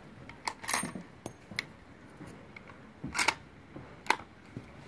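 Bolt of a scoped bolt-action rifle chambered in .300 Remington Ultra Mag being worked by hand: a handful of short, sharp metallic clicks and clacks, the loudest about three seconds in, followed by a crisp click about a second later.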